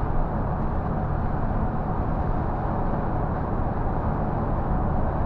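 Scania bus cruising at highway speed, heard from inside the driver's cab: a steady drone of engine and road noise.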